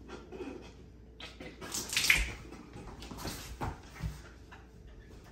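Stifled, sputtering snorts and breaths from people holding water in their mouths while trying not to laugh. The loudest burst comes about two seconds in.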